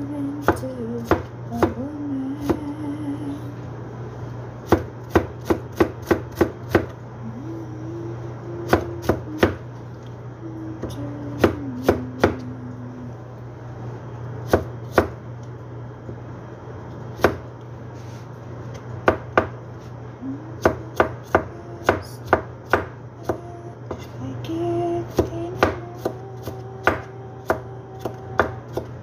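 A chef's knife chopping a vegetable on a plastic cutting board: sharp knocks of the blade on the board, coming in quick runs with short pauses between them.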